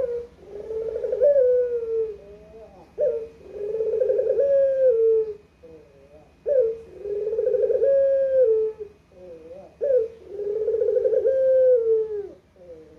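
Puter (Barbary dove) cooing: four long rolling coos, each about two seconds, repeated roughly every three seconds.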